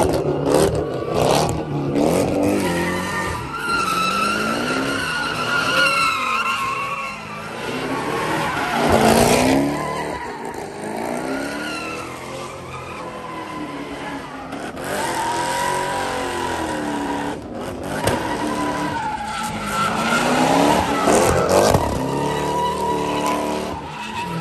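Cars drifting in tight donuts: engines revving up and down again and again, with tyres squealing on the asphalt. The loudest burst comes about nine seconds in.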